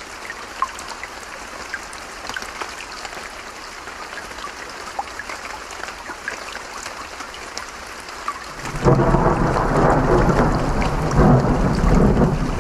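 Steady water noise of a stream and rain, with scattered drip ticks. About two-thirds of the way in, a loud, deep roll of thunder begins suddenly and keeps rumbling.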